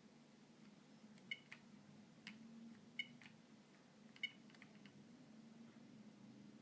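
Faint clicks from pressing the keys of a Philips Savvy mobile phone. Three of the presses, spread a second or so apart, carry short beeps, over a faint low hum.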